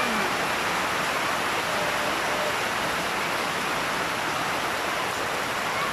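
Heavy rain falling steadily: a dense, even hiss with no breaks.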